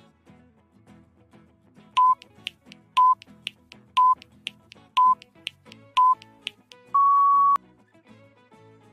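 Quiz countdown-timer sound effect: five short electronic beeps a second apart with a tick between each, then one longer, slightly higher beep marking time up. Soft background music plays underneath.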